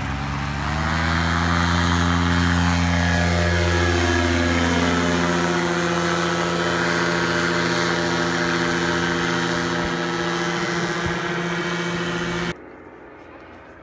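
Paramotor engine and propeller at full power for takeoff and climb: it revs up about a second in and then runs as a steady, loud drone, with a falling sweep in pitch as it passes overhead. The sound cuts off abruptly near the end.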